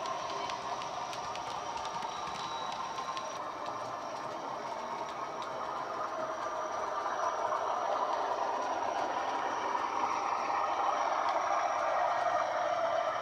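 Simulated Class 40 diesel engine sound from a Coastal DCC sound decoder, played through a small tablet speaker fitted in a Bachmann OO-gauge model locomotive as it runs. It grows louder over the last several seconds as the model comes round toward the camera, with light clicks in the first few seconds.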